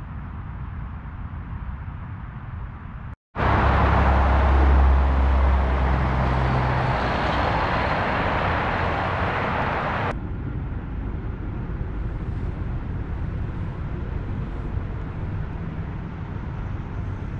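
Steady hiss and rumble of highway traffic, in three shots cut together. The middle shot, from about three to ten seconds in, is the loudest, with a heavy deep rumble.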